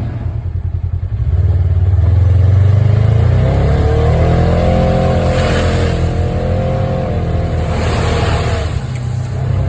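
Engine of an off-road vehicle running under way, its pitch rising about three seconds in, holding, and dropping back near the end.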